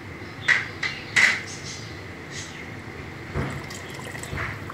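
Water being poured into a pot of fried black chickpea masala, with two sharp knocks against the pot about half a second and a second in and a dull thump later on.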